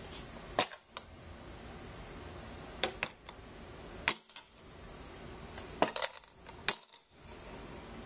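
Master Lock 207D magnetic key case being pulled off and snapped back onto a steel refrigerator door, the magnet tugging it against the metal: a handful of sharp clacks spread over several seconds, some in quick pairs, with quiet handling in between.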